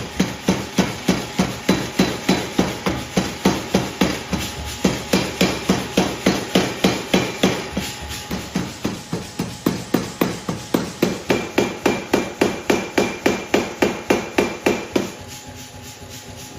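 Hammer blows on steel being forged, struck at an even pace of about three a second, each with a short metallic ring. The hammering stops near the end.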